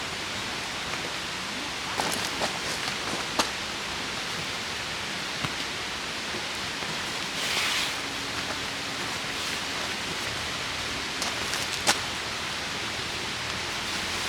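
Steady hiss of falling rain, with a few sharp ticks of drops landing and a brief louder rush about halfway through.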